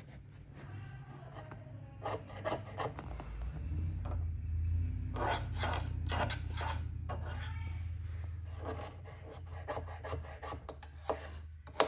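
Irregular rasping, rubbing handling noise, a hand moving against the textured metal panel and the camera, over a steady low hum, with a sharp knock near the end.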